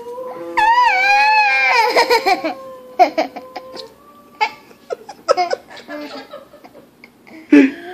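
A dog howls along to harmonica in one long wavering note, then people laugh in short scattered bursts.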